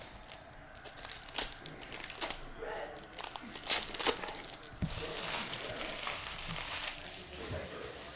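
Foil trading-card pack wrappers being torn open and crinkled, with sharp crackles scattered through the first few seconds.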